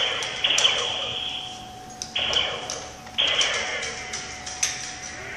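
Electronic game sound effects: sudden zapping bursts about half a second, two seconds and three seconds in, each fading away with falling sweeps, over a steady electronic tone.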